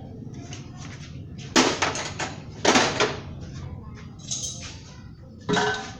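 Metal tools and parts clanking and clattering in a series of sharp knocks, the loudest about one and a half to three seconds in, with a last clank that rings briefly near the end.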